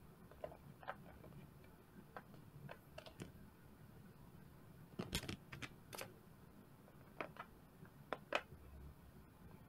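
Soft, scattered taps and clicks of silicone pop-it puzzle pieces being picked up, handled and set into a plastic tray, with a few louder knocks about five to six seconds in and one more about eight seconds in.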